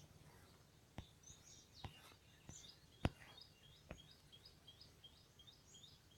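Faint bird chirping: short high chirps repeated quickly, about three a second in the second half. Four sharp clicks cut in, the loudest about three seconds in.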